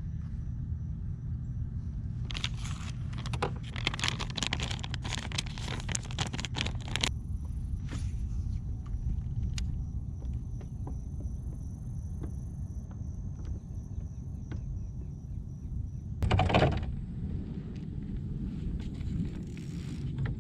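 Steady low rumble of wind buffeting the microphone outdoors. About two seconds in there are several seconds of rapid, irregular clicking and rattling, and near the end a brief, louder rush of noise.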